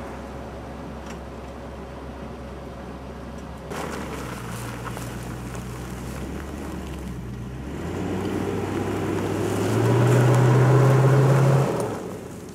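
Four-wheel-drive SUV engine pulling away on a snowy dirt track: a low steady engine hum that grows louder from about four seconds in, is loudest near the end, then drops off sharply just before it ends.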